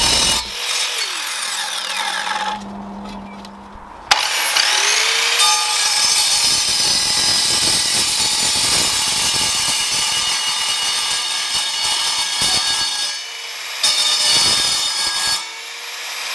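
Evolution 1500-watt sliding mitre chop saw cutting through 50 mm mild-steel box-section tube, the blade grinding through the metal. It runs in several cuts, with a short break about three seconds in and another about thirteen seconds in, and bites in again sharply about four seconds in.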